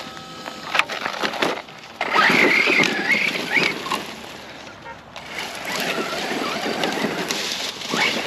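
Footsteps crunching through dry grass and brush, with twigs snapping, as a person walks along a dry hillside trail.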